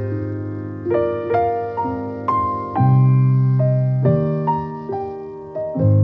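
Background piano music: a slow, gentle melody with a new note or chord struck about every second, each ringing on and fading.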